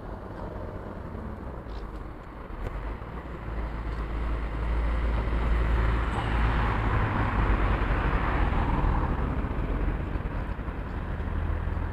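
Street traffic: a passing car's tyre and engine noise swells about four seconds in and fades again near the end, over a steady low rumble.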